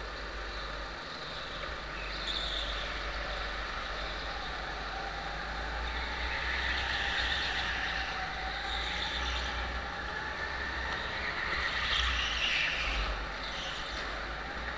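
Onboard sound of a Sodi go-kart at race speed: its motor runs with a pitch that rises and falls through the laps, over a low wind rumble on the camera. Short high tyre squeals come in the corners, the most prominent about two seconds in and around twelve to thirteen seconds in.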